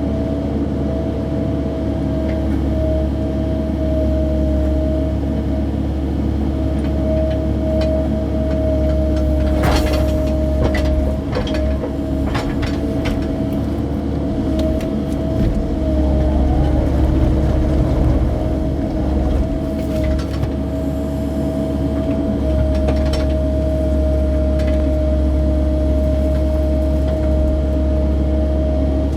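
Cat mini excavator's diesel engine running steadily under load, with a steady high tone over the engine hum, as the machine cuts and shifts mud with its bucket. A few sharp knocks come about ten to twelve seconds in.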